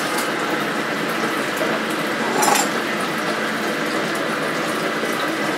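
Kitchen mixer tap running steadily into the sink while hands are washed under the stream. There is one short click about halfway through.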